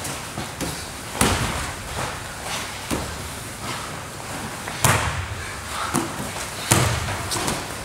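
Jiu-jitsu grapplers in gis scuffling on a mat: rustling and shuffling with irregular thuds and slaps of bodies and hands hitting the mat, the loudest about a second in, around five seconds in and near the end.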